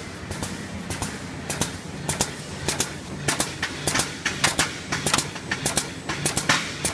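Three-side-seal plastic bag-making machine running: a steady hum under a quick, slightly uneven clatter of sharp clicks, about three a second, which grows denser and louder from about a second and a half in.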